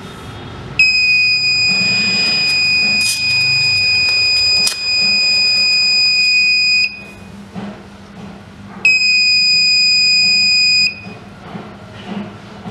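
Piezo buzzer on an Arduino air-pollution detector sounding a steady high-pitched tone: it comes on about a second in and holds for about six seconds, then, after a two-second pause, sounds again for about two seconds. It is the detector's alarm, set off as its gas sensor picks up smoke from burning plastic.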